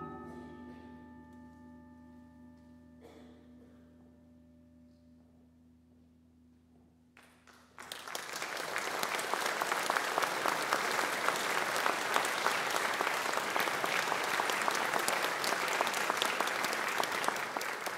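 The percussion ensemble's final chord rings out and slowly dies away, then audience applause breaks out suddenly about eight seconds in and carries on steadily.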